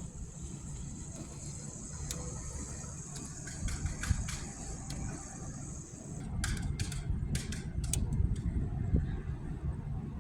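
Blizzard wind gusting at an open window and buffeting the microphone, a rough low rumble that swells in gusts about four seconds in and again in the second half. A thin high hiss cuts off about six seconds in, and a handful of sharp clicks follow.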